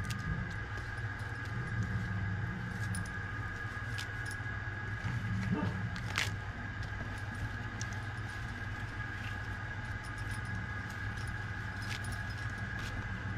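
Pumpkin flowers being split and torn apart by hand, heard as small crackles and clicks, with the bangles on the wrists clinking, one click a little sharper about six seconds in. A steady low hum and a faint steady high tone run underneath.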